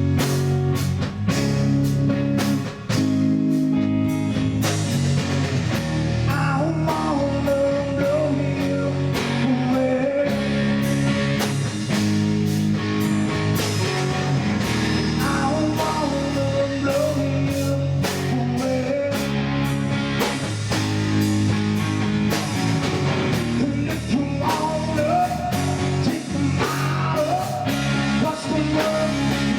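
Blues-rock song in an instrumental break: a lead guitar line bending up and down over bass, rhythm guitar and a drum kit keeping a steady beat.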